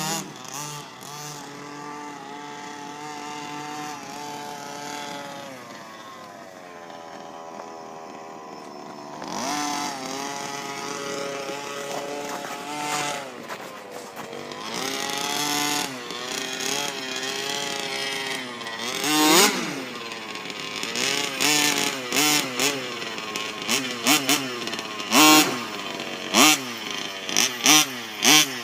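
Small engine of a freshly rebuilt baja running and revving up and down on its first test run. In the last several seconds it gets a series of short, sharp throttle blips.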